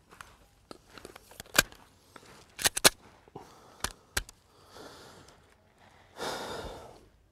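Kahr CW9 9mm pistol being handled for loading: a series of sharp metallic clicks, the loudest a close group of three about halfway, as a magazine is seated and the slide worked. A short breathy rush of noise follows near the end.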